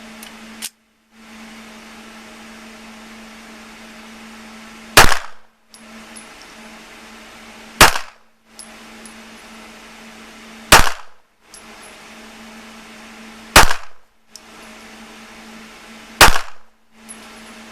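Five handgun shots fired one at a time, evenly spaced about three seconds apart: slow, aimed single fire at a pistol range.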